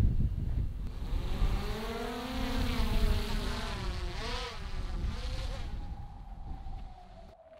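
Quadcopter drone (DJI Mavic 2 Pro) buzzing as its propellers spin, the pitch rising and falling as it manoeuvres and growing fainter as it flies off. Wind rumbles on the microphone at the start.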